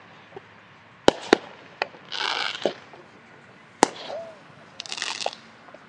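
Fireworks going off: several sharp bangs, two close together about a second in and another near the four-second mark, with two short spells of hissing crackle between them.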